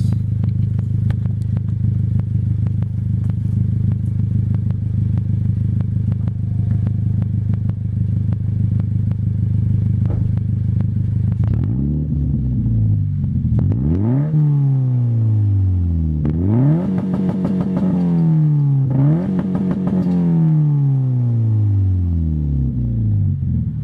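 Car engine idling through a newly fitted catback exhaust, a Y-pipe splitting to two mufflers, then revved about four times from about halfway in, the pitch climbing and falling with each rev before it settles back to idle near the end.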